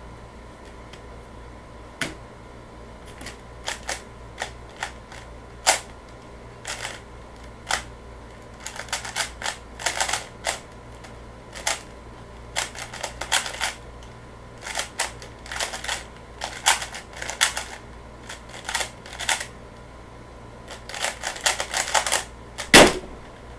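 3x3 speedcube being turned fast during a timed solve: quick irregular runs of plastic clicking and clacking as the layers turn, for about twenty seconds. Near the end comes one loud thump as the solve finishes, the cube set down and the hands slapping the StackMat timer to stop it.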